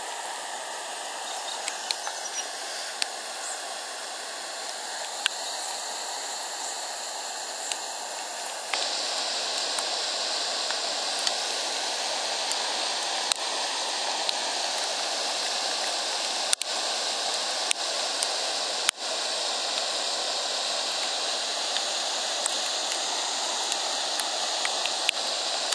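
Floodwater rushing across a flooded road and through paddocks: a steady wash of moving water, which gets louder about nine seconds in.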